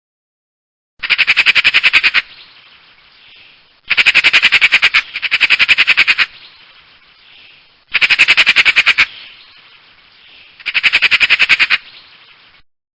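Eurasian magpie giving its harsh chattering rattle: five rapid bursts of about a second each, two of them back to back, with short pauses between.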